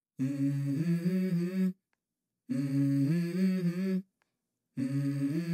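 Background music: a wordless hummed vocal melody in three short phrases, each about a second and a half long, with brief silent gaps between them.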